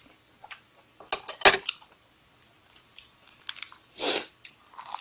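Eating sounds at a table. About a second in comes a quick run of sharp clicks from chopsticks against dishes, the loudest part, then chewing. Near four seconds there is a short rustle as lettuce and perilla leaves are folded into a wrap.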